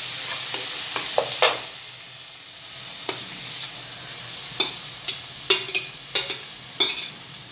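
Masala sizzling as a spatula stirs it in the pot for the first second and a half. Then a spatula scrapes and knocks against a steel plate as fried okra is pushed off it into the pot, with several sharp clacks in the last three seconds.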